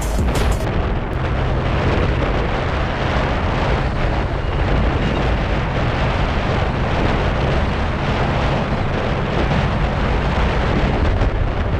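Heavy wind buffeting on the microphone at speed, over the steady drone of a Honda Dio 110 scooter's 109 cc single-cylinder air-cooled engine held at high revs.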